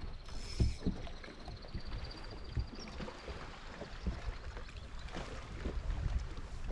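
Small waves lapping and slapping against the hull of a plastic sit-on-top kayak, with irregular low knocks. A faint thin high whine sounds for the first three seconds or so.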